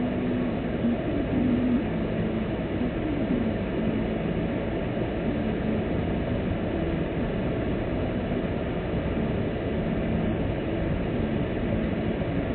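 Steady engine hum and tyre rumble of a car driving slowly on a rough, rutted road, heard from inside the cabin through a dashcam microphone.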